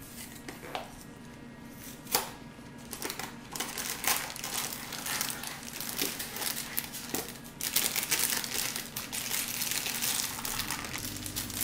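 Packet of brownie mix crinkling and crackling as it is worked open by hand, sparse at first and heaviest about two thirds of the way through; the packet is really hard to open.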